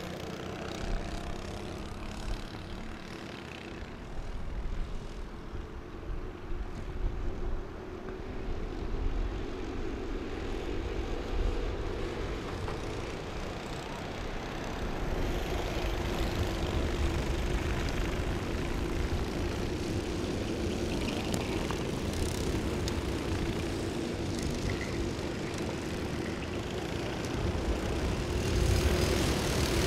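Several Honda cadet kart engines, small single-cylinder four-strokes, droning as the karts race past. The drone is steady and swells louder near the end.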